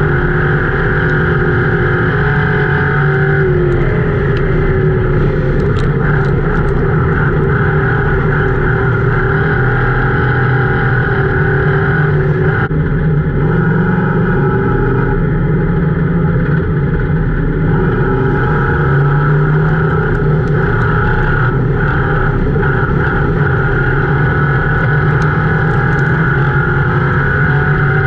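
Ford Crown Victoria race car's V8 engine running hard at racing speed, heard from inside the cabin, with road and chassis noise. The engine pitch rises and dips slightly as the car goes through the turns.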